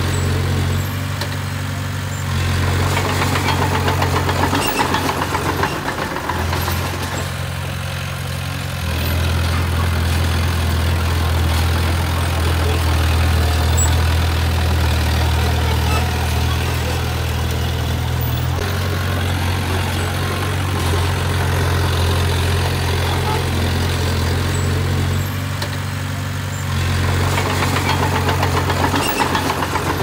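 Bulldozer's diesel engine running continuously, its note rising and falling, with louder spells a few seconds in and again near the end.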